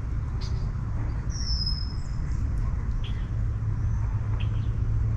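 Steady low rumble, with a bird's high whistle falling slightly in pitch about a second and a half in and a few short chirps.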